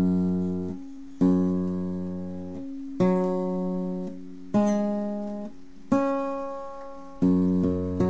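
Background music on acoustic guitar: slow chords, each struck and left to ring out and fade, about one every second and a half.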